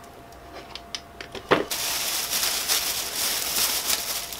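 A few light clicks and a knock about a second and a half in, then a thin plastic shopping bag rustling and crinkling as a hand rummages in it.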